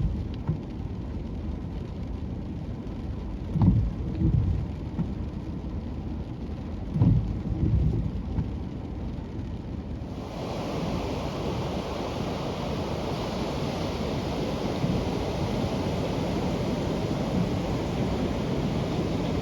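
Ocean surf on a beach with wind gusting on the microphone in low surges. About halfway through it changes abruptly to a steadier, hissier wash of surf.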